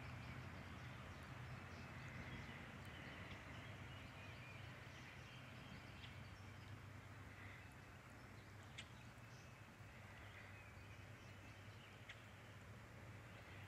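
Near-silent outdoor ambience: a steady low hum with faint, scattered high chirps and a few soft clicks.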